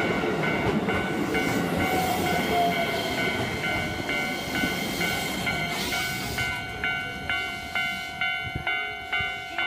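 Railway level-crossing warning bell ringing in a steady, rapid repeating clang, a little over two strikes a second, over the rumble of a passing train. The train fades away about six seconds in, leaving the bell ringing on its own.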